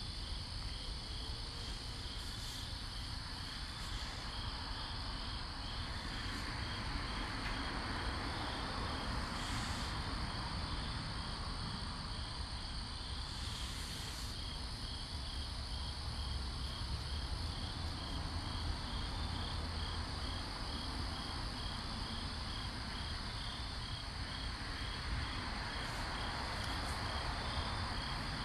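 Crickets chirping steadily: a continuous, rapidly pulsing high trill, with a soft rushing hiss that swells and fades a few times.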